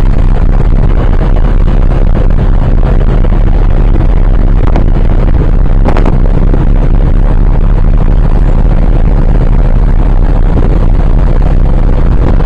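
Wind buffeting the microphone on a ferry under way: a loud, steady rushing over a low rumble, with one sharp click about six seconds in.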